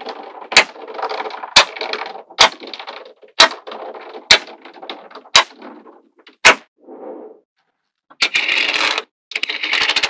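Small magnetic balls snapping together with sharp clicks about once a second, with a soft rattle of balls shifting between the clicks. Near the end comes a dense, loud clatter of many balls moving at once.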